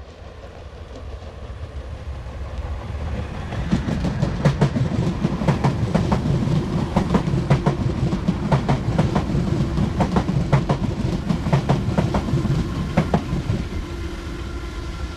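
Passenger train passing close by: its rumble builds from the start, then a long run of sharp wheel clicks over the rail joints over a steady hum, easing off near the end.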